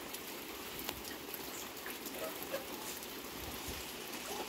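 Light rain pattering, an even hiss of drops with scattered small ticks.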